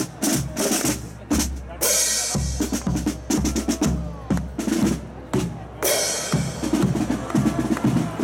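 Drum section of a carnival marching band playing a march: snare drums over bass drum beats, with cymbal crashes about two seconds in and again near six seconds.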